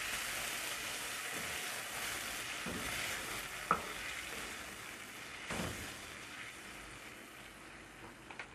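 Red bean curry sizzling in a non-stick frying pan as it is stirred with a spoon, a little water having just been added. There are a couple of light knocks of the spoon against the pan, and the sizzle fades toward the end.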